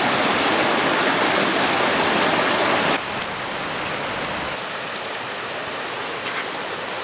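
Rushing creek water, a steady hiss that drops suddenly to a quieter, softer rush about three seconds in.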